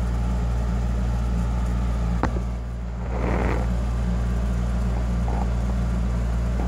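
Steady low electrical or mechanical hum. About two seconds in there is a single sharp click, and a moment later a short rustle.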